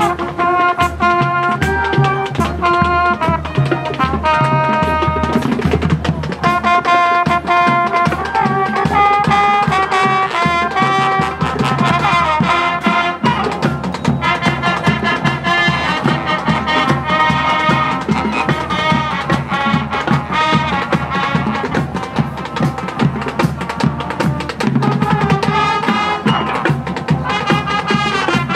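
High school marching band playing: the brass section plays held chords and a melody, with a steady drum beat from the percussion underneath.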